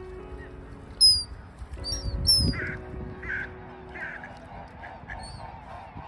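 Birds calling: a few sharp, high descending calls about a second and two seconds in, then a run of harsher calls about two-thirds of a second apart. A low bump sounds near the middle, and faint background music runs underneath.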